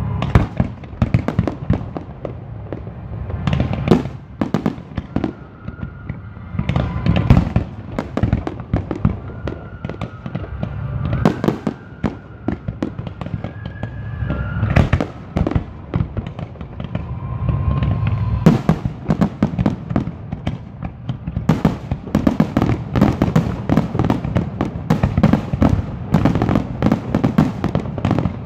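Fireworks display: aerial shells bursting one after another with deep booms and crackling. From about three-quarters of the way through, the bursts run together into a dense, continuous crackle.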